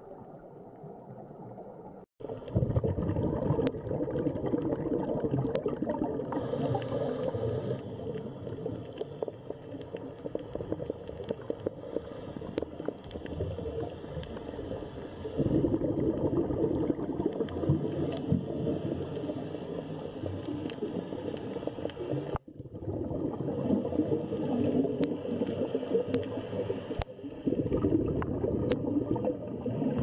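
Underwater ambience from a diving camera: a dense, muffled gurgling and bubbling water noise with a few sharp clicks. It cuts out abruptly for an instant about two seconds in and again a little past twenty-two seconds.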